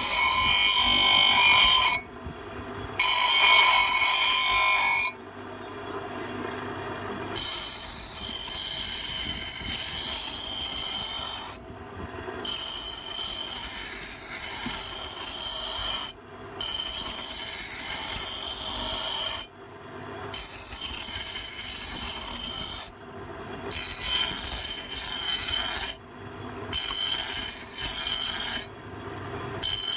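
A power tool running on the steel of an axe, a steady high-pitched ringing whine that comes in stretches of a few seconds and starts and stops abruptly.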